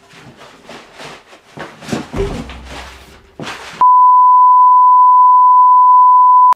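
A loud, steady 1 kHz test tone, the broadcast 'please stand by' colour-bar tone, cuts in abruptly about four seconds in and holds unbroken. Before it there are only quieter, irregular scattered sounds.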